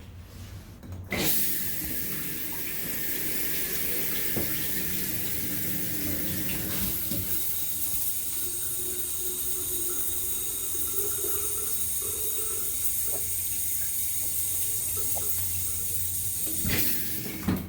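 Water spraying from a newly installed Moen shower head. It is turned on about a second in and runs steadily, then shuts off suddenly near the end: the repaired shower being tested.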